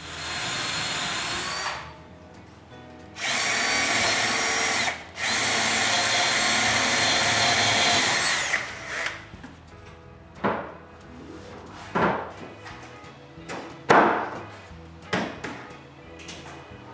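Power drill running in three long steady runs, its whine rising as each run starts and then holding, followed by several separate sharp knocks, as wood wall planks are worked back into place.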